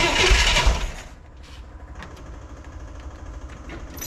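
1963 Corvair's air-cooled flat-six cranked by the starter for about a second without catching, then a pause.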